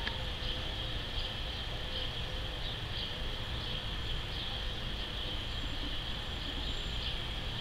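A steady high-pitched insect trill with faint pulses about twice a second, over a constant low background rumble.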